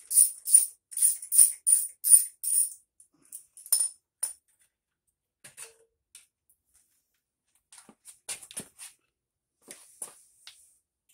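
Ratchet wrench worked in quick short strokes, a run of clicking bursts about two or three a second that stops about two and a half seconds in. After that, a few scattered light metal clinks and taps of tools and parts.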